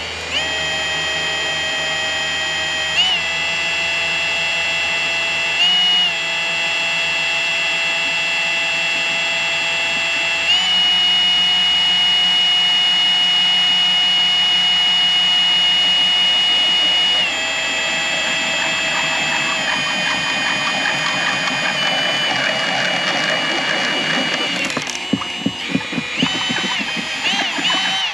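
Cordless drill whining steadily as it bores into a boat windshield with a special bit. The motor speed steps up and down a few times, then sags lower and turns rough and stuttering over the last few seconds before it stops.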